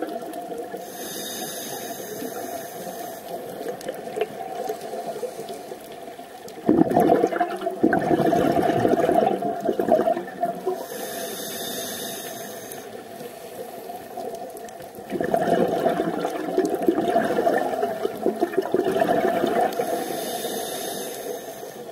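Scuba regulator breathing heard underwater. A hissing inhale comes about a second in, another near the middle and a third near the end. Between them are two long, louder bubbling exhalations.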